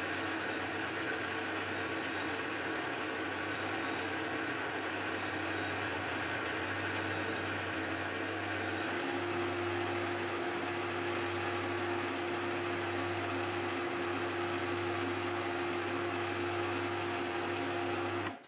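Milling machine spindle running as an indexable cutter mills a brass hammer head: a steady motor hum and whine whose tone shifts about halfway through, then cuts off suddenly near the end.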